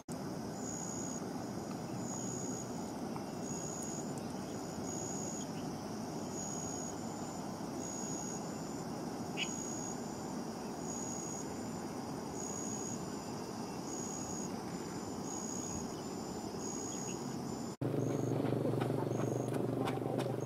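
Outdoor ambience: a steady even hiss, with a high, chirping insect call pulsing about one and a half times a second in two alternating pitches. About three seconds before the end the sound cuts to a louder, lower hum with clicking.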